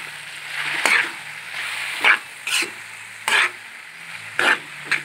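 Metal spatula scraping and knocking against a wok about five times as banana blossom and longganisa are stirred, over a steady sizzle of the sauté.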